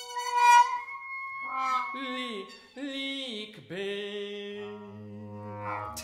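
Live contemporary chamber music for baritone voice, trumpet and trombone: a held high note, then a run of falling glides, settling into sustained low notes near the end.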